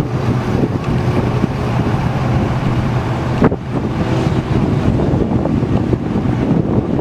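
Strong wind and heavy rain buffeting the microphone, over the low rumble of a vehicle. A single sharp knock comes about three and a half seconds in.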